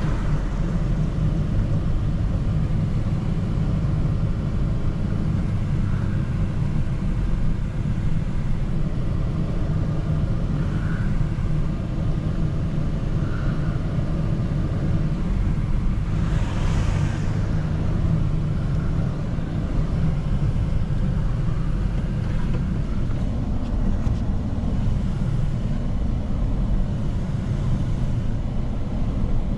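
Steady low rumble of a vehicle driving, engine and road noise heard from inside the cab, with a brief rush of noise a little past halfway.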